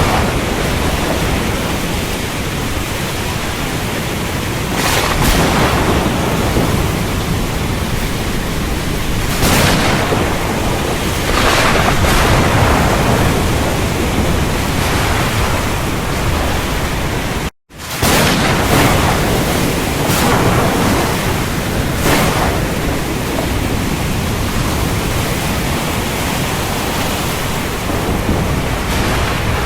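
Heavy rain pouring steadily with strong wind, gusts swelling every few seconds. The sound drops out for an instant a little past halfway, then resumes.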